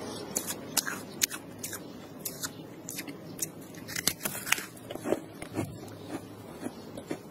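Freezer frost being bitten and chewed: a run of sharp, irregular, crisp crunches.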